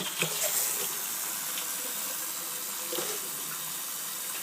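Tap water running steadily, filling a container up.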